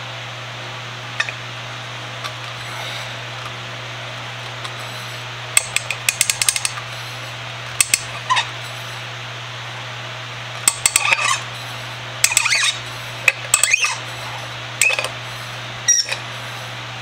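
Channel-lock pliers clicking, clinking and scraping against the brass fitting and metal body of an old solvent dispensing can as its bottom is worked loose to unscrew it. The clicks are scattered at first, then come in quick clusters from about five seconds in, over a steady hum.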